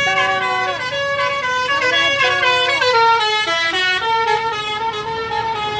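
Indonesian bus 'telolet' musical air horn playing a tune of stepped notes, then one long held note from about four seconds in.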